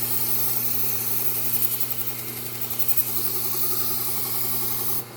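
Knife edge pressed against a fine Trizact A30 (about 600 grit) belt on a running slow-speed belt sander: a steady motor hum under a loud, high grinding hiss, which wavers as the blade is drawn along and stops about five seconds in when the blade is lifted off. The fine belt is refining the edge rather than cutting a new bevel.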